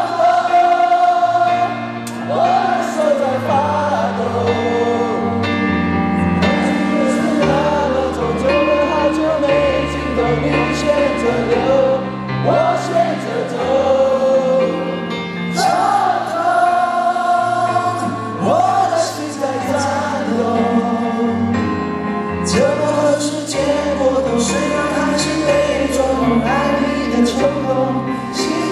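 Live pop ballad: a male vocalist sings a slow, held melody over keyboard, sustained bass notes and light cymbals, with the full, reverberant sound of an arena.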